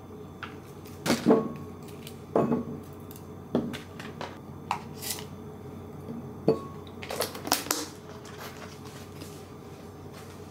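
Grapes and cubes of cheese dropped by hand into a small glass bowl, making irregular clinks and taps on the glass, about ten in all. A steady low hum runs underneath.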